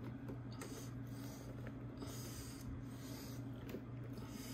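Quiet hand-tightening of the battery terminal fasteners: soft scraping and a few faint clicks, with soft breathy hisses every second or two over a steady low hum.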